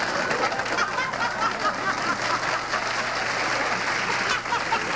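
Studio audience laughing and applauding at a joke's punchline, a steady mix of many voices and hand claps.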